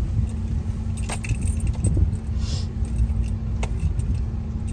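Road noise inside a moving car: a steady low rumble from engine and tyres, with a few light rattles and clinks from loose things in the cabin over the bumps.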